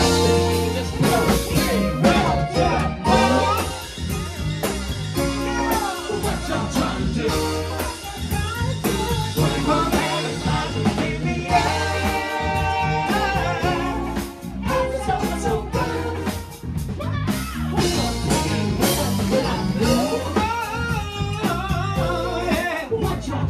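Live band playing a pop-funk song: lead singing over electric guitar, keyboard, bass and drums with a steady beat.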